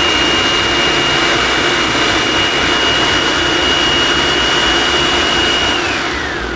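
Food processor motor running at full speed, grinding dry ingredients into a powder, with a steady high whine over the rattle of the bowl. Near the end it is switched off and the whine falls in pitch as the blade spins down.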